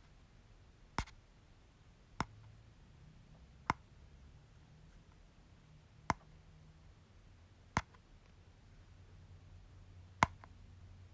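Six short, sharp tap sounds at irregular gaps of one to two and a half seconds, one for each boop of an animal's nose, over a faint low hum.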